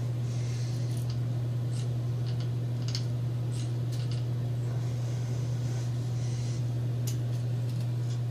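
A steady low hum, with scattered light clicks and taps as the small model steam engine and its flywheel are touched and picked up by hand.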